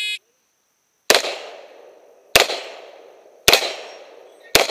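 A shot timer's short start beep, then four revolver shots about a second apart. Each shot is followed by an echo that dies away over about a second.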